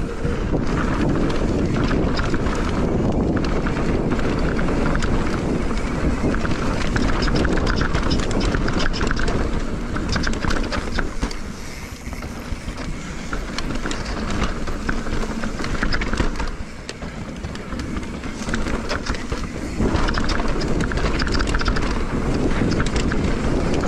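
Wind buffeting the microphone of a camera on a mountain bike riding fast down a dirt trail, over the rumble of knobby tyres on dirt and the rattle and knocks of the bike over rough ground. The noise eases briefly about halfway through and again for a few seconds later on, then picks back up.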